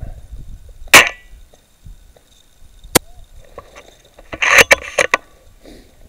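Sharp mechanical clicks and clacks from a spring-powered SSG24 airsoft sniper rifle being fired and handled. One loud click with a short metallic ring comes about a second in, another single click two seconds later, and a quick cluster of clicks near the end, with handling rumble underneath.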